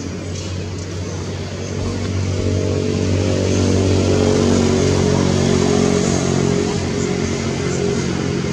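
A motor vehicle engine running with a steady low hum, growing louder over the first few seconds and easing off toward the end.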